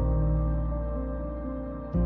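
Slow ambient background music: a deep held chord struck at the start and again near the end, fading in between.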